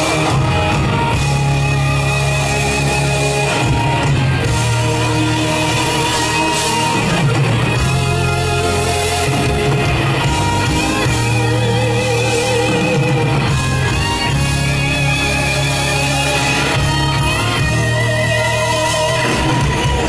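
Live band playing amplified pop-rock music in a large hall, with electric guitar over keyboards.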